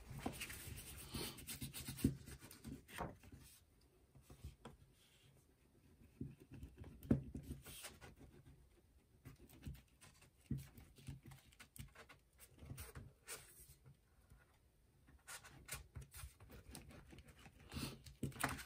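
Glue stick rubbed back and forth over paper in faint scratchy strokes, on and off, with a couple of light knocks.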